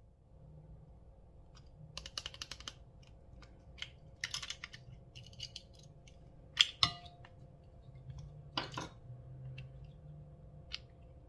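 Irregular clusters of small, close-up clicks and crackles from objects being handled, with one sharper click a little past the middle.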